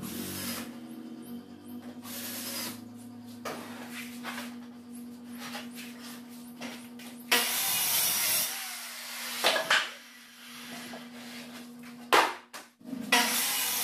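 Electric circular saw cutting plywood, with bursts of cutting noise about seven seconds in and again near the end. Between them come sharp knocks of cut plywood boards being handled.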